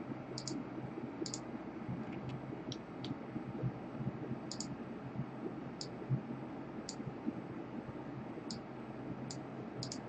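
Computer mouse button clicks, about ten at irregular intervals, several in quick pairs, over a faint steady hum.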